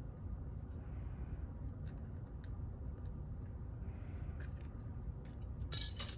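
Faint small metallic clicks and taps from a padlock and its lock core being handled while it is taken apart, over a steady low hum. A louder short scraping rattle comes near the end.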